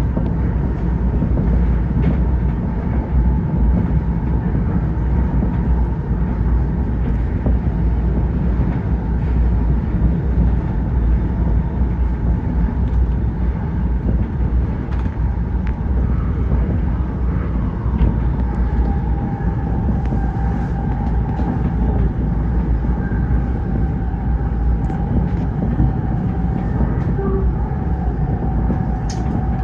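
Tokyo Metro 05 series electric train running at speed: a steady rumble with a continuous whine that drops slightly in pitch about 18 seconds in.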